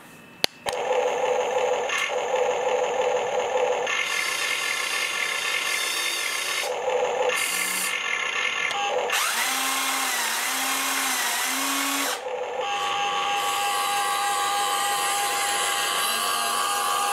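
Electric motors of a Huina 1593 RC excavator whining under load as the boom and bucket lift a 12V cordless drill and the upper body swings round. The whine starts just under a second in after a couple of clicks and changes pitch each time a different function is driven, several times over.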